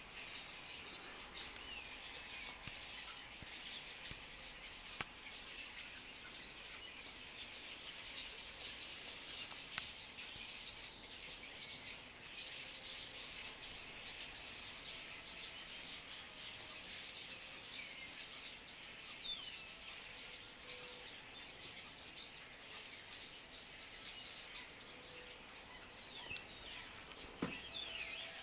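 A large flock of starlings chattering: a dense, unbroken mass of high squeaks and short whistles, busiest in the middle, with a few sharp clicks.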